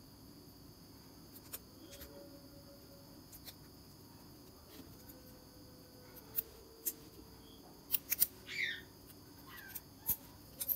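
Scattered small clicks of a G-Shock watch band and steel wing adapter being pushed into the lugs of the case and bezel. There is a quick cluster of clicks about eight seconds in, followed by a brief squeaky scrape.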